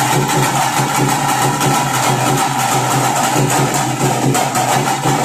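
Loud drum music with a fast, steady beat, played for a folk dance.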